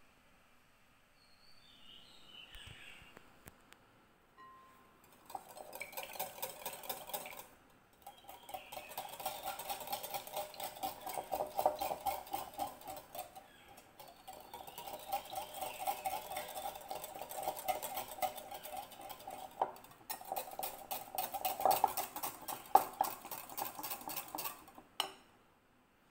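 Stainless-steel balloon whisk beating eggs in a glass bowl: fast, even strokes of wire clinking against the glass and swishing through the liquid. It starts about five seconds in and comes in four runs with brief pauses between them.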